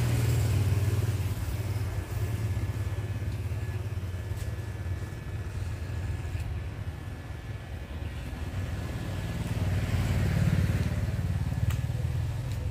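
Motorbike engine running steadily while riding: a rough low rumble that swells a little near the end.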